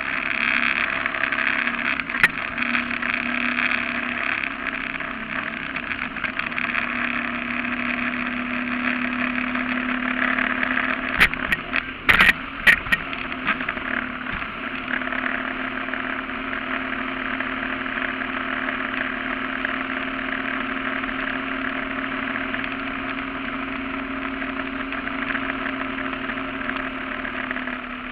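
Surface-drive mud motor pushing a flat-bottom boat at speed, a steady engine drone with water spray hissing along the hull. A few sharp knocks come about twelve seconds in.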